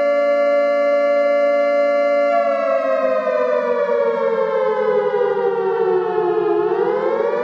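Siren wailing: a steady pitch that, about two seconds in, slowly winds down and then swings back up near the end.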